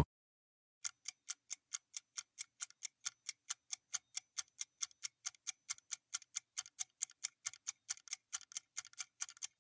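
Clock-style ticking sound effect at about four ticks a second, starting just under a second in: the countdown timer of a quiz question running down.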